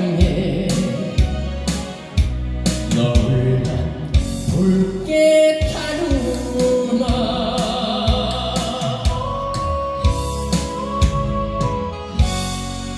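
A male vocalist sings a Korean trot song over a recorded backing track with a steady drum beat. Toward the end the singing stops and the backing track carries on with its instrumental outro.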